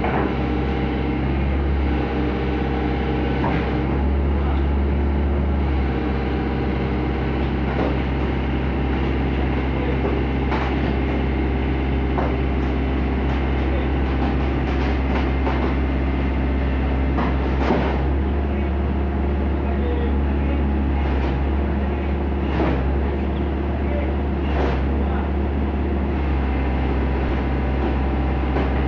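Hitachi Zaxis 110 excavator's diesel engine running steadily under load as the machine tracks onto a lowbed trailer, with occasional sharp clanks of the steel tracks on the deck.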